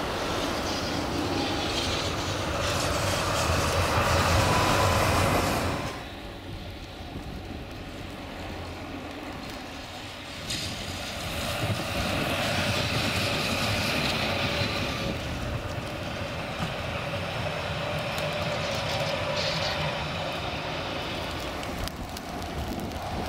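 A car drives close past on a snowy street, louder until it cuts off abruptly about six seconds in. Then an articulated tram runs past on snow-covered track, loudest about half-way through.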